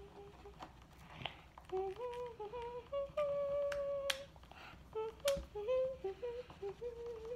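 A young girl humming a wandering tune in short held notes, with a few sharp clicks, the loudest about four and five seconds in.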